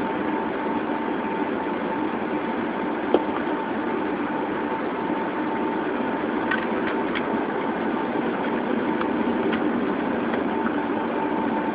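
Airliner cabin noise from inside the cabin: a steady rush of engine and air noise with a faint steady whine. There is a single sharp click about three seconds in.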